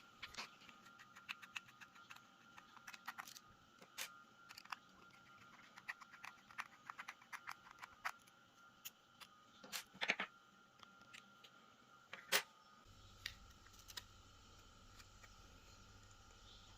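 Faint, irregular clicks and taps of small plastic and metal hair-clipper parts being handled and pried apart during disassembly, with a few sharper knocks about ten and twelve seconds in.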